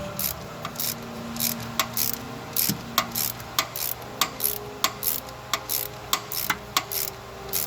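Irregular sharp metallic clicks and short scrapes from a thread tap being turned by hand through a stripped bolt hole, chasing the threads.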